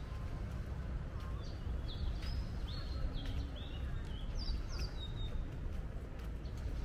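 Birds chirping: a run of short, high calls over a steady low rumble of city background noise.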